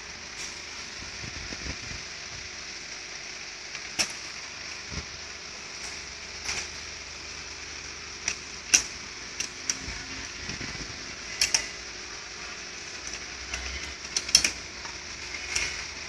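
Scattered sharp clicks and knocks of metal and plastic parts being handled inside a Riso digital duplicator while its thermal print head sensor is taken out. The loudest come a little past the middle and near the end, over a steady background hiss.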